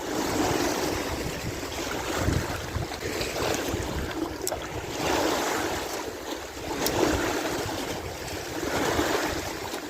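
Small wind-driven lake waves washing against the dam, surging and ebbing about every two seconds, with wind rumbling on the microphone.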